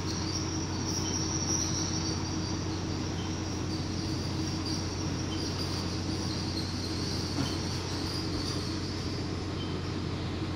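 Steady mechanical hum with a low drone, an even hiss and a faint high whine, the constant background noise of running equipment; no distinct handling sounds stand out.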